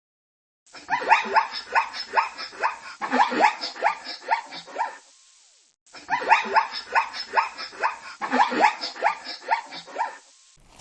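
Dog barking rapidly, about three barks a second, in two runs of roughly four seconds each with a short pause between.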